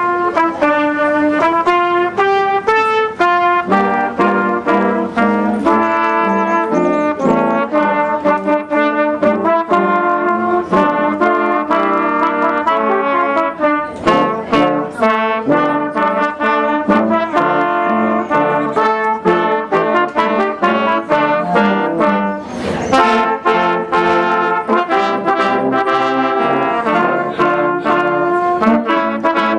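Brass music: a brass ensemble playing a melody, one line alone at first and the full band joining about four seconds in.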